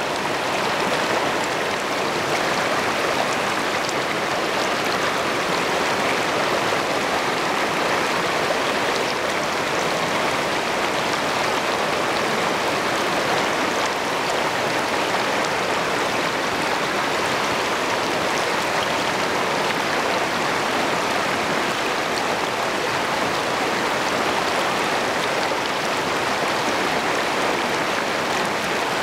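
Shallow river rushing over rocks in a small rapid, heard from just above the water: a steady, even rush and splash with no breaks.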